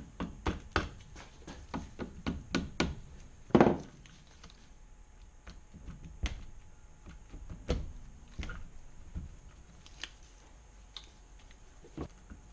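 Irregular knocks and clunks from the cylinder barrel of a Kawasaki KLR 650 engine as it is rocked and worked up off its studs by hand. A quick run of taps comes in the first three seconds, then the loudest knock, then sparser clunks.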